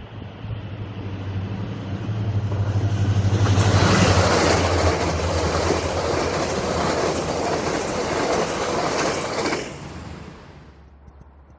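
Diesel-electric locomotive passing, its engine drone building and loudest about four seconds in, followed by the steady noise of passenger coaches' wheels on the rails. The noise cuts off suddenly near the end as the last coach goes by.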